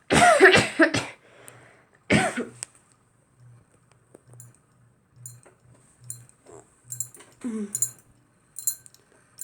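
A person coughs twice in the first few seconds. Then the old Homes Trend ceiling fan runs on low speed with a faint low hum that pulses evenly just under twice a second, in time with the wobble of the loose fan.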